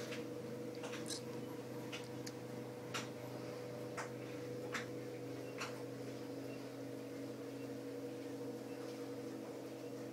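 A steady indoor electrical hum with sharp ticks about once a second, most of them in the first half.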